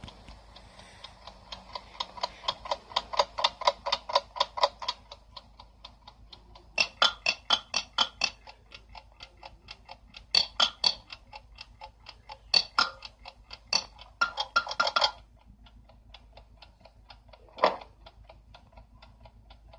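Cartoon sound-effect alarm clock ticking in rapid, even ticks, the ticking growing loud in several stretches and dropping back to faint between them. A single louder knock comes near the end.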